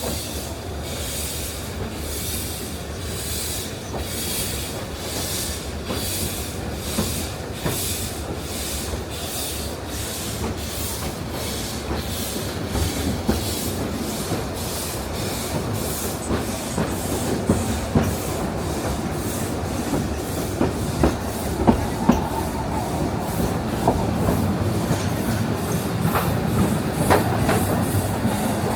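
Isle of Man Steam Railway steam locomotive chuffing in even beats that quicken as the train gathers speed. Under the beats, the wheels rumble and click over the rail joints, growing louder in the second half.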